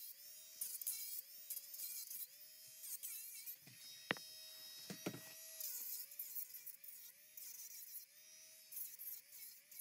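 A small electric motor running, its pitch wavering up and down over and over, with two sharp clicks about four and five seconds in.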